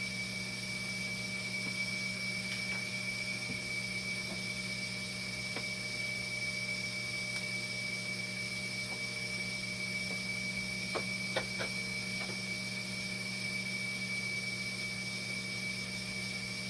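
Steady hum of running machinery with a constant high-pitched whine, and a few light clicks about eleven seconds in.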